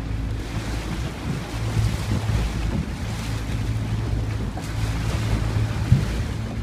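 A small open tour boat's engine droning steadily under way, with water rushing against the hull and wind buffeting the microphone. A brief thump comes near the end.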